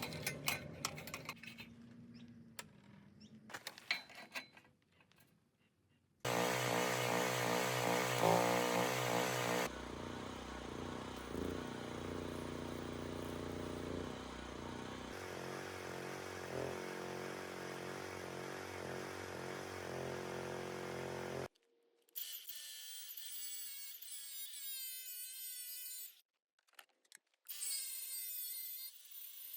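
Power tools working steel bar, in a string of cut-together clips. A few light metal clinks come first, then a long, loud, steady run of a machine, then quieter whining passes whose pitch wavers.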